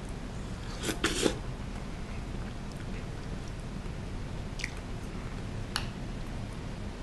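Eating sounds from a spoonful of soup curry taken off a wooden spoon: a short slurp about a second in, then two faint clicks later on, over low room hum.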